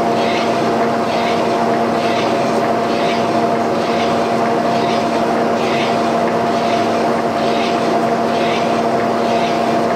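Portable line-boring machine's drive motor running steadily with a constant hum, with a swishing pulse repeating about one and a half times a second as the bar turns.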